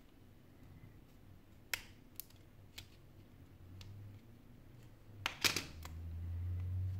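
Small sharp clicks and taps of a plastic pry tool and phone parts as a Sony Xperia Z5 Compact is worked on by hand: a few spaced-out clicks, then a louder quick cluster of clicks a little past five seconds, over a low steady hum.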